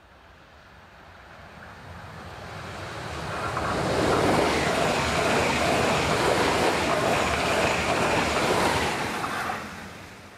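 Stadler Flirt3 electric multiple unit approaching and passing at speed. Its wheels and rolling noise on the track grow over about four seconds, stay loud for about five as the cars go by, then drop away quickly near the end.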